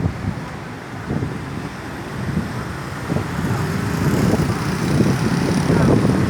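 Road traffic going past, a vehicle getting louder about halfway through, with some wind on the microphone.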